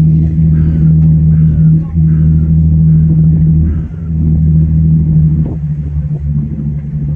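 Steady low drone of a passenger ferry's engine under way, with wind buffeting the microphone on the open deck, the low rumble surging and dipping.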